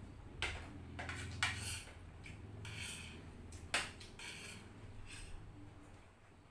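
Spoon and fork clinking and scraping against a plate while eating, with a few sharp clinks, the loudest about a second and a half in and again near four seconds.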